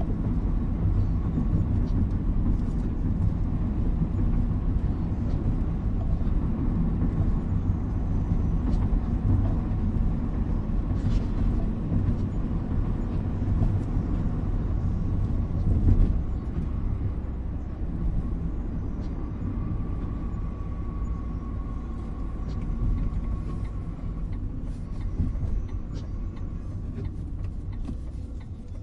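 Car cabin road noise while driving on a wet street: a steady low rumble of engine and tyres on wet pavement, with scattered light ticks.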